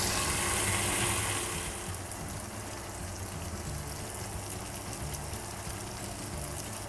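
Chicken pieces sizzling as they sauté in a pot. The sizzle is louder for the first second or two, then settles to a softer hiss over a low steady hum.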